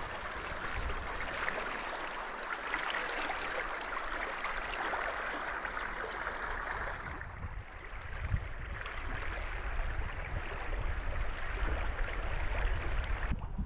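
Muddy, snowmelt-swollen Paria River rushing past: a steady wash of running water. About halfway through the sound turns lower and rumblier, and near the end the hiss drops away suddenly.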